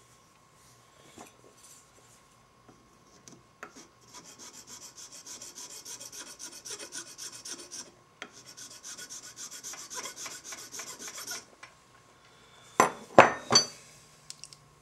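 A flat hand file scraping across a white ferrule rod in quick, even strokes for several seconds, with a short pause midway. Near the end come three loud, sharp knocks.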